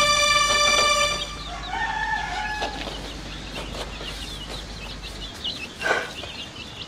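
Music dying away at the start, then chickens clucking and chirping, with a held crow-like call about two seconds in and a louder cluck near the end.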